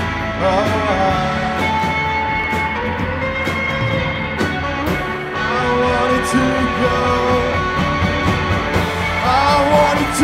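Live rock band playing electric guitars, with a male lead vocal singing over them.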